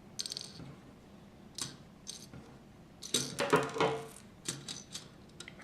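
Small plastic LEGO pieces clicking and rattling as they are handled and pressed together, with a busier run of clicks about three seconds in.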